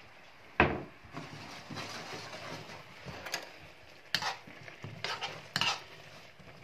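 Metal spoon stirring a creamy curry sauce in a frying pan, clinking and knocking against the pan several times. A sharp knock comes about half a second in.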